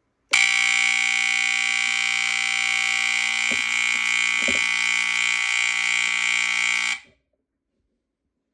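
FireX FXC-1 smoke alarm's mechanical buzzer sounding one steady, unbroken buzz, set off by sprayed test smoke. It starts suddenly and cuts off abruptly about seven seconds in.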